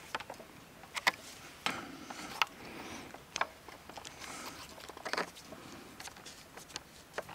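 Scattered light clicks and taps with soft rustling at irregular intervals, from hands handling a homemade slingrifle with an arrow fitted in its nock holder.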